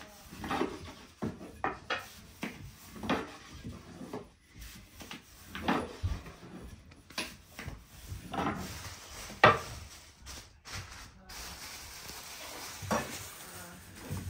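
Intermittent knocks, scrapes and clatter of cookware and wood being handled while bread is baked over a fireplace fire, about one stroke a second, with the loudest knock a little past the middle.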